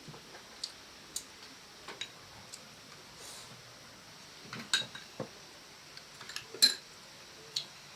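Irregular light clicks and clinks of objects being handled, with louder knocks about five seconds in and again at six and a half seconds.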